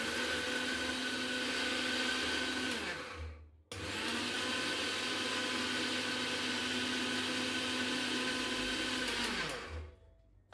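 Electric mixer grinder grinding damp soaked rice into flour in its small steel jar, run in two goes: the motor runs at speed for about three seconds and winds down, then starts again about a second later and runs for about six seconds before winding down again.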